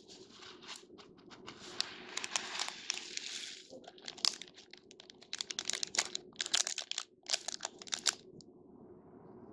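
Hands rustling and digging through a bed of small foam beads, then crinkling plastic snack wrappers in quick clusters of sharp crackles that stop about a second before the end.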